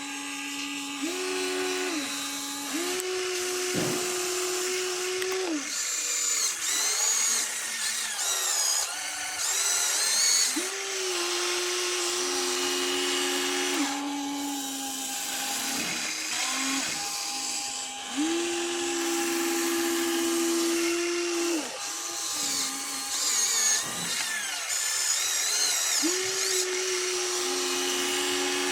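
Small electric motors and gearboxes of a toy RC construction vehicle whining. Each run holds a steady pitch for a few seconds, stepping up or down between two pitches, then stops before starting again, with a wavering high gear whine at times.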